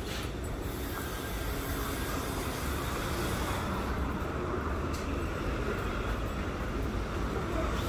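Steady low rumble of a vehicle passing, slowly growing louder.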